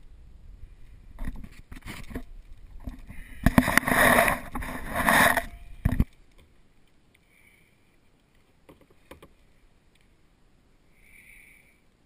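Splashing and scraping noise around a sea kayak, in separate bursts and then a louder stretch about four to six seconds in that stops abruptly. Faint short high tones follow.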